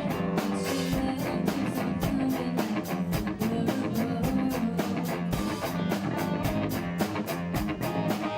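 Rock band playing live: guitars and bass guitar over a drum kit keeping a steady beat.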